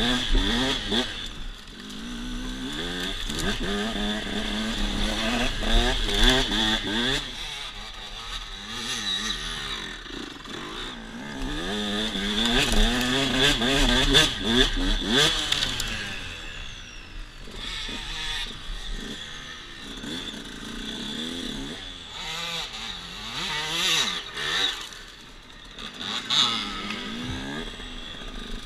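KTM dirt bike engine revving up and down again and again as the bike is ridden over rough ground, with a few knocks near the end.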